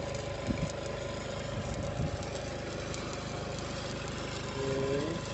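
An engine idling steadily, with an even low hum and a couple of constant tones; a brief pitched sound comes in near the end.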